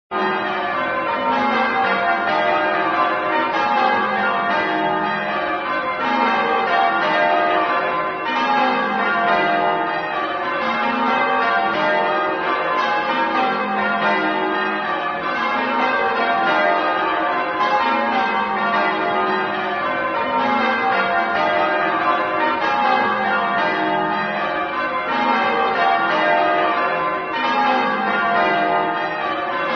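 A peal of several bells ringing one after another in descending runs that repeat every few seconds. It starts abruptly from silence.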